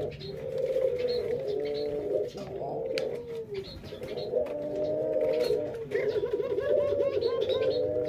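Doves cooing, a near-continuous run of low, wavering coos that dip briefly a few seconds in, with faint high chirps from small birds behind them.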